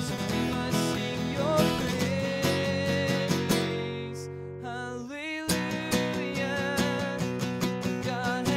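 Acoustic guitar being strummed in a steady rhythm. Around the middle a chord is left ringing and fades, and the strumming picks up again about five and a half seconds in.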